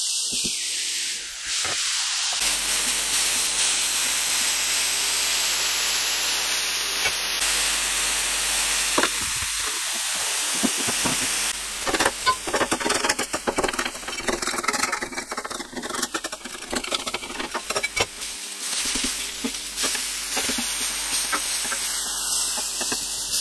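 Smash burger patties and chicken pieces sizzling on a hot steel flat-top griddle, a steady hiss. From about halfway, a metal spatula scrapes and taps against the griddle plate in many quick clicks.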